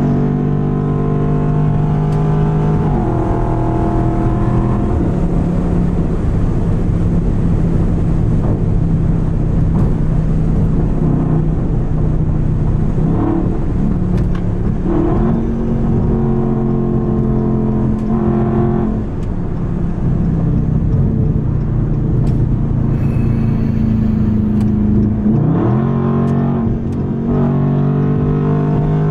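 Car engine and exhaust droning as heard inside the cabin while driving on a freeway. The engine note holds steady, then shifts pitch every few seconds and rises briefly several times as the throttle changes.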